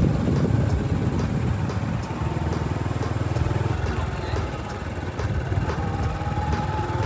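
Motorbike engine running steadily at low speed as it is ridden, with a light ticking about twice a second.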